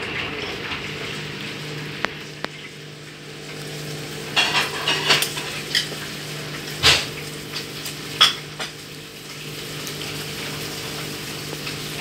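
Front-loading inverter-motor washing machine running a wash cycle: a steady motor hum under water sloshing in the turning drum. Several sharp knocks and clacks come between about four and nine seconds in, the loudest near seven and eight seconds.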